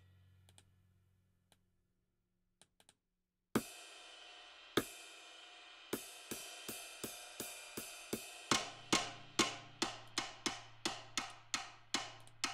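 Sampled drum kit in a drum sampler (Steven Slate Drums 5), played from the controller's pads: after a few faint clicks, a cymbal crash rings out, then from about six seconds in a steady run of cymbal and drum hits at about two to three a second, each one ringing out in full now that poly pressure is turned off for the pad.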